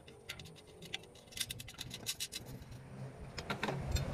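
Faint, irregular clicks and light scrapes of aluminium antenna element rods being handled and set against a square aluminium boom.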